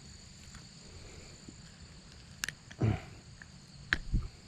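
Steady high-pitched insect buzz, broken by a few sharp clicks and a dull thump about three seconds in.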